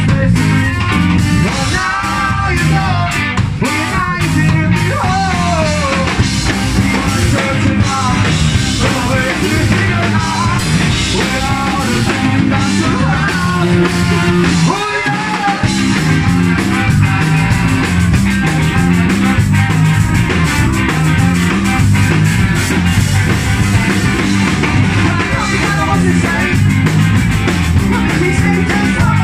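Ska-punk band playing live and loud: a guitar, trombone and other horns over bass and a drum kit, with a singer. The bass drops out briefly about halfway through, then the band comes back in.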